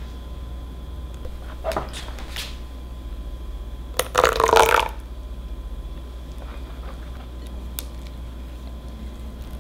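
Silicone spatula scraping and tapping a glass mixing bowl of cheesecake batter. About four seconds in comes the loudest sound: lemon juice poured into the batter, a brief splashing pour of under a second. A faint steady hum runs underneath.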